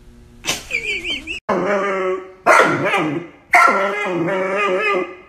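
A dog making a run of drawn-out, wavering whining calls, several in a row with short breaks, starting about half a second in.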